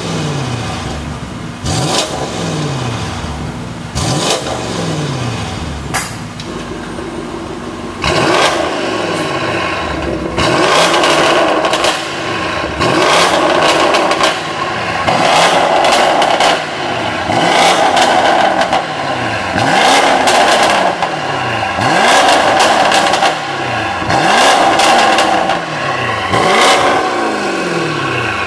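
BMW X6 M50i's twin-turbo 4.4-litre V8 (N63), fitted with catless downpipes, is revved from idle about every two seconds. Each rev rises and falls in pitch, with sharp cracks. From about eight seconds in the exhaust is louder, with the exhaust valves open.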